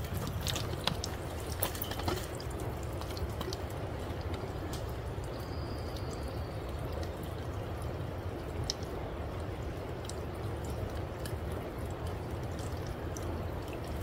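Water trickling and dripping steadily from a small spring, with scattered small clicks.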